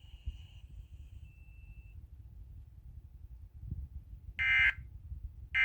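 Emergency Alert System end-of-message data bursts on the radio feed: short, loud, buzzy electronic squawks about a second apart, the second one cut off at the end. They are preceded by a faint steady high tone that fades out about two seconds in.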